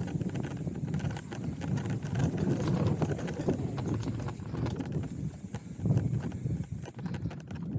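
Chromag hardtail mountain bike riding fast down a rough dirt trail: tyres rumbling over the ground, with constant quick rattling and knocks from the unsuspended bike as it hits roots and rocks.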